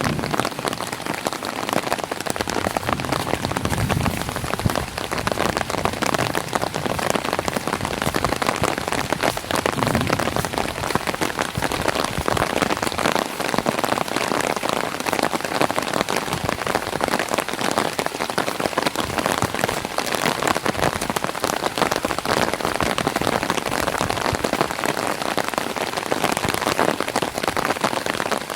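Light rain falling on an umbrella overhead: a dense, steady spatter of drops with no letup.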